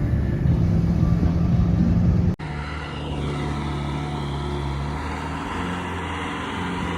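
Heavy machinery engine running steadily, with an abrupt cut about two seconds in to another, somewhat quieter engine running steadily.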